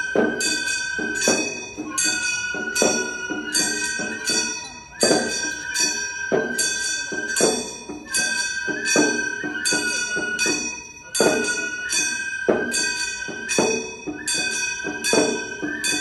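Gion bayashi festival music: small metal hand gongs struck in a brisk, ringing rhythm, about two strikes a second, under a high transverse flute holding long, slightly wavering notes.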